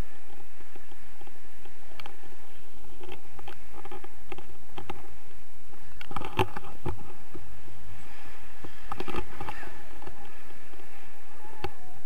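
Steady wind rushing over the camera microphone in flight under a tandem paraglider, with a few short knocks and rustles about halfway through and again near 9 s.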